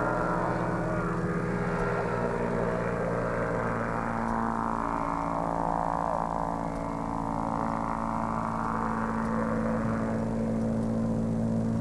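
Small propeller plane's engine droning steadily in flight, swelling a little in the middle as it passes.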